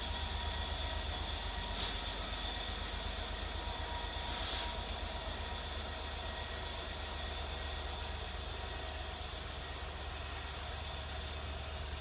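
Locomotive running with a steady low rumble and a few steady high tones, with two short high hisses, about two seconds in and again, slightly longer, about four and a half seconds in.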